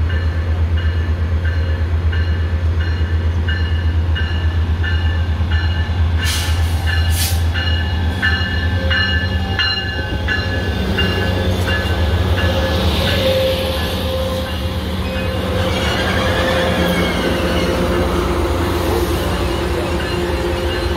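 Siemens Charger diesel-electric locomotive arriving at a station: a loud, steady engine rumble, with its bell ringing at an even pace through the first half. As the locomotive and coaches roll past at slow speed, a hiss of wheels and brakes with faint squealing tones comes in.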